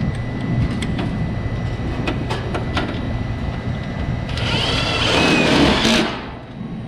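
A few light clicks of parts being handled, then a cordless drill whirring for about a second and a half as it drives a self-tapping screw to mount a switch, stopping suddenly. A steady low machinery hum runs underneath.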